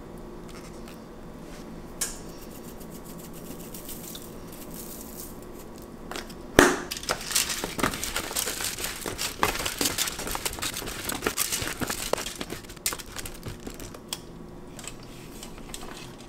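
A plastic bag crinkling and rustling as it is handled, in a dense run of about six seconds starting near the middle, after a single knock early on.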